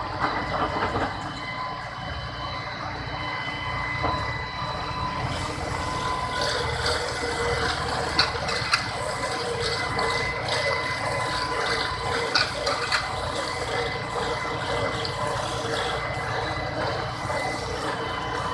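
Preet 90 hp tractor driving an Orkel silage baler: steady engine and machinery running with a high steady whine and intermittent clatter, with a few sharp clacks in the second half.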